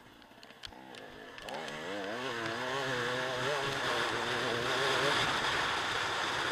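Off-road dirt bike engine, quiet at first, then getting louder from about a second and a half in, its pitch wobbling quickly up and down as the throttle works while riding the trail.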